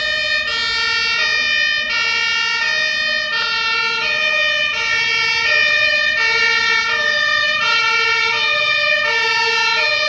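German two-tone fire engine siren (Martinshorn) on an Iveco HLF 10 fire engine responding on an emergency call, sounding loudly with a high tone and a low tone alternating about every half second.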